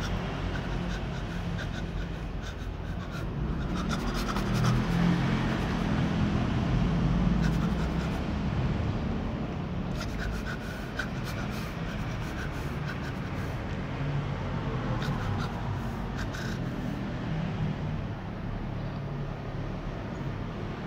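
Two kittens eating rice up close: clusters of small, quick clicks from chewing and licking come and go over a steady low drone.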